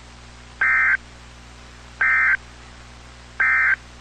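Emergency Alert System end-of-message (EOM) signal: three identical short bursts of SAME digital data, a raspy electronic buzz about a third of a second each, spaced about a second and a half apart, over a faint steady hum. The bursts mark the end of the alert message.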